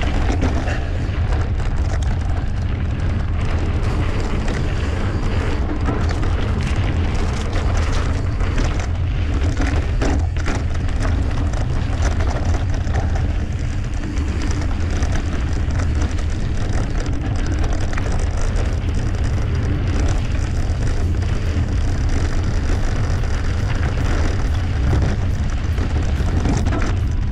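Steady wind buffeting the microphone of a camera carried on a moving mountain bike, a heavy low rumble with many small knocks and rattles from the bike on the trail.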